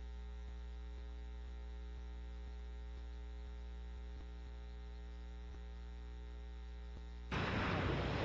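Steady electrical mains hum with a ladder of overtones, from a blank stretch of tape between recordings. About seven seconds in it cuts abruptly to louder outdoor noise as the recording resumes.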